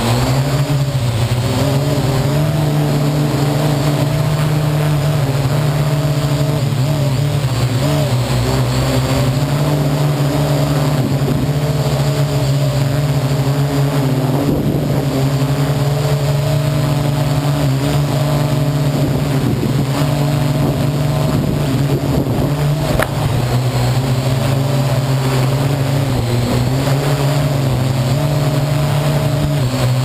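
Parrot AR.Drone quadcopter's four electric motors and propellers running with a steady hum, heard right up close from the camera mounted on the drone. The pitch steps up and down slightly as the motor speed changes.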